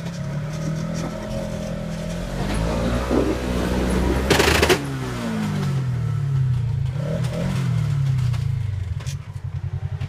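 Polaris RZR side-by-side's engine revving up and down repeatedly as it crawls over boulders, with a loud scrabbling burst of tyres and underside on rock about four and a half seconds in.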